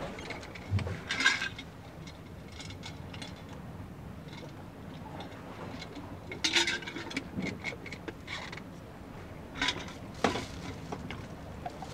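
Scattered small clinks, taps and scrapes, as of hard objects being handled, over a steady background hiss; the busiest moments come about a second in, six and a half seconds in and around ten seconds in.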